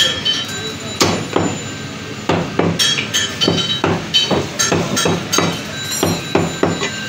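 Heavy butcher's cleaver chopping fresh lamb on a wooden tree-stump block: a rapid, uneven run of sharp chops, two or three a second.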